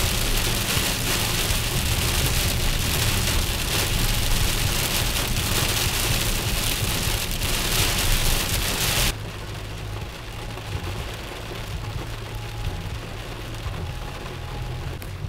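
Heavy rain pelting a car's windshield and roof while driving. About nine seconds in it cuts off abruptly to much quieter rain over a low road rumble.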